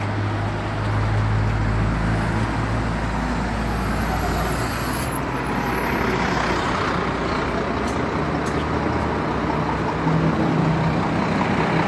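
Urban street traffic: a steady wash of passing vehicles, with a low engine rumble in the first half that fades about five seconds in.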